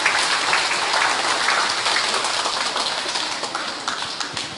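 Crowd applauding: a dense patter of many hands clapping that dies away near the end.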